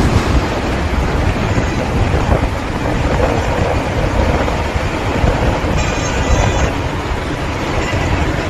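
Tornado winds: a loud, steady rushing noise, heavy and deep in the low end.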